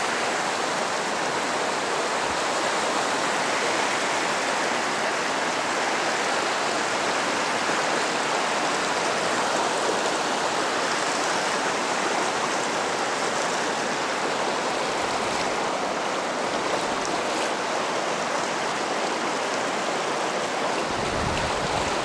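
Stream water rushing steadily, an even, unbroken hiss.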